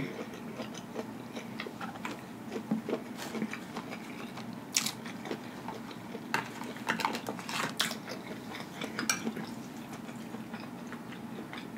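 A person chewing and biting fried shrimp, with scattered short, sharp clicks through the chewing, and a metal fork working on a plate of fried fish.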